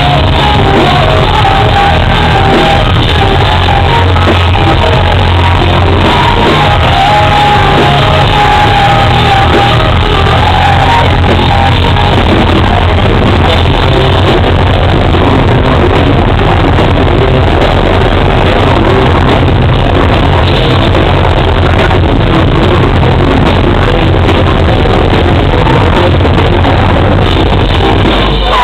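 Metal band playing live at full volume: distorted guitars and drums with shouted vocals, loud throughout.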